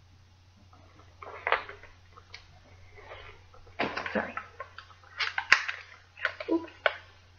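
A small jar of paw butter being unwrapped and opened by hand: scattered short rustles of its wrapping, and a sharp click about five and a half seconds in.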